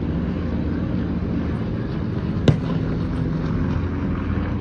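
Steady engine drone with a low hum, and one sharp click about two and a half seconds in.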